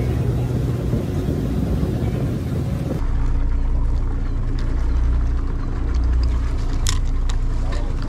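Fishing boat's engine running, with rushing wind and water noise for the first three seconds; then a sudden change to a steadier low engine hum, with a few sharp clicks near the end.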